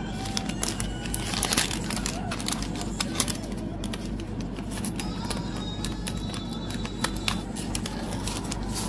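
Packaging and items being handled during an unboxing: crinkling plastic or paper with many light clicks and taps, over a steady low background.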